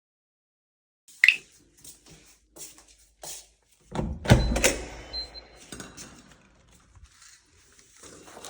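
A series of knocks, clicks and clatters from objects being handled, with the loudest cluster of clatter about four to five seconds in.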